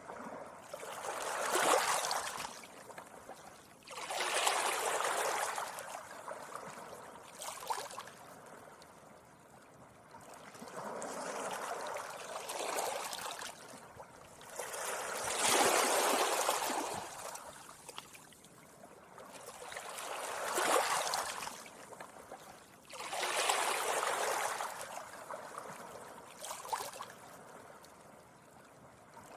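Small sea waves washing gently onto a beach. Each one swells into a hissing rush and fades away, about every four to five seconds.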